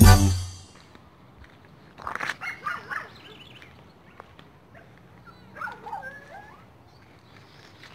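Dogs barking and yelping in two short bouts, about two seconds in and again about six seconds in.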